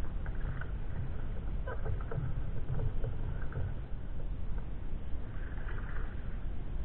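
Sea kayak paddle strokes: the blades dip and splash in the lake water in short bursts, several in the first four seconds, over a steady low rumble.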